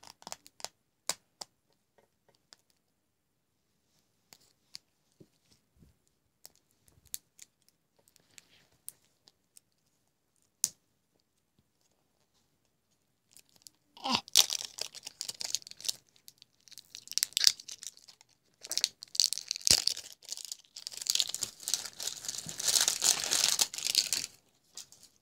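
Toy packaging wrap being torn and crinkled open by hand: a few light scattered clicks and taps at first, then from about halfway in several loud spells of tearing and crinkling.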